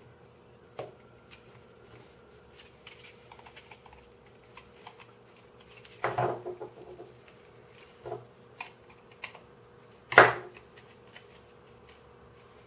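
Small hard plastic 3D-printed puzzle parts and a screwdriver being handled on a wooden tabletop: a few scattered clicks and knocks, the loudest about ten seconds in, over a faint steady hum.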